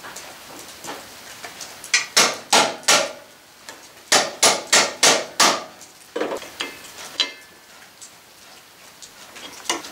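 Mallet striking the drive shaft's U-joint end at the axle's pinion yoke: a quick run of four sharp knocks about two seconds in, then five more a second later, with a few lighter knocks near the end.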